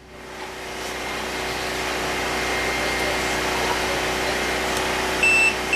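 A steady whooshing machine noise, like a cooling fan, builds up over the first second and then holds, with a faint steady hum under it. Near the end come three short, high electronic beeps.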